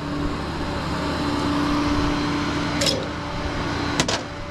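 A motor vehicle engine running steadily with a constant hum. A short knock about three seconds in and two sharp clicks near the end.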